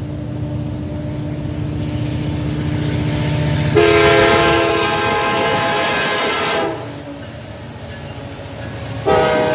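Kansas City Southern diesel freight locomotive approaching, its engine rumble growing louder. About four seconds in it sounds a long blast on its several-tone air horn, and a second blast starts near the end.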